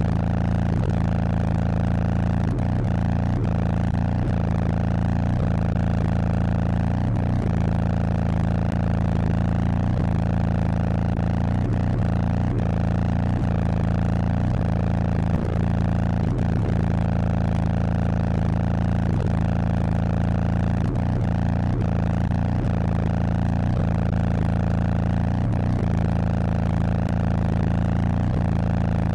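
Car subwoofers playing a loud, unchanging low bass drone made of a few steady tones, with faint clicks now and then.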